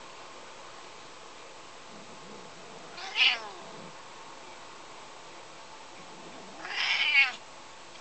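Domestic cat giving two meowing yowls, a short one about three seconds in and a longer, louder one near the end: an agitated, feisty cat protesting at being handled.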